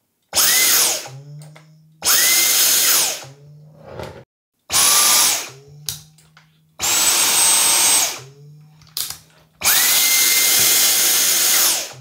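Dyson V10 cordless stick vacuum switched on and off with its trigger five times, its motor starting each time with a fast rising whine that holds steady, then winding down on release; the last run is the longest. The rebuilt battery pack is powering it properly, with a slight delay before the motor starts.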